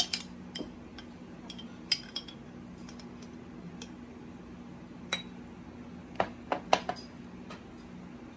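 Metal spoon clinking against a glass jar and a glass sundae glass as syrupy fruit is spooned out and dropped in: scattered sharp clinks, with a quick run of them about six to seven seconds in.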